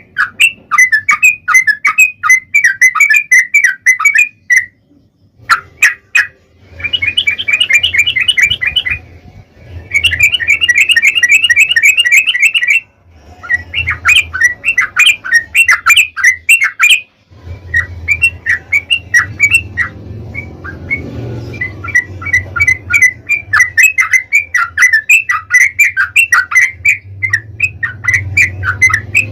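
Yellow-vented bulbul (trucukan) song: long, rapid runs of short bubbling notes, delivered in bursts of a few seconds with brief pauses between them. A faint low hum sits underneath.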